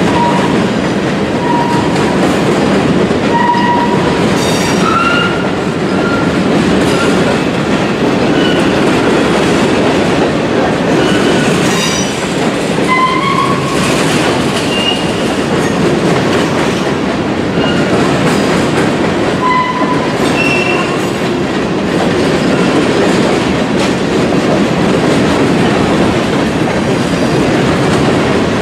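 Freight train of covered hopper cars rolling past close by: a steady rumble of steel wheels on rail, with short high-pitched wheel squeals coming and going throughout.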